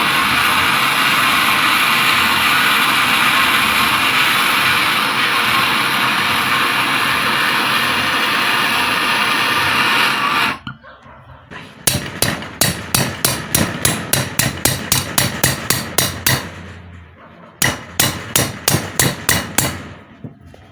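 A blowtorch flame hissing steadily as it heats a seized, rusted screw in the pump's aluminium housing to expand the metal, cut off about ten seconds in. Then a small hammer taps rapidly, about five taps a second, in two runs with a short pause between.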